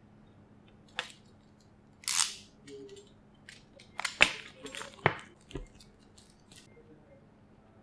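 Handling noises of small objects: several sharp clicks and knocks scattered through, with a brief rustle about two seconds in.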